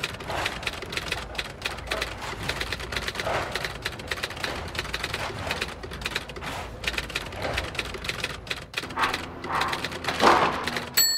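Rapid, dense clicking and clattering of hard plastic toy construction parts being handled and fitted together, sped up like the time-lapse. A bell-like ding starts right at the end.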